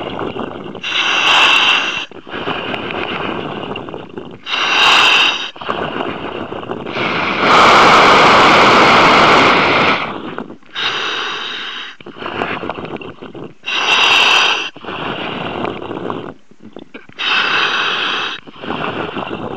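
A surface-supplied diver breathing in a dive helmet: a rush of gas through the helmet's demand regulator with each breath, about one every three seconds, with one longer, louder rush about eight seconds in.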